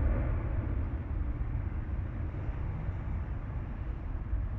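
Distant jet engine noise from a Boeing 737-800's CFM56-7B turbofans as the airliner climbs away after take-off, a steady low rush that eases off slightly.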